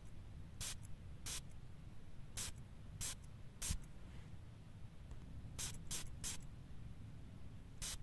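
Perfume atomizer spraying: nine short, hissy spritzes at irregular intervals, three of them in quick succession a little past the middle.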